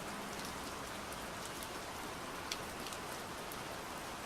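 Steady gentle rain falling, an even hiss with a few scattered drop ticks.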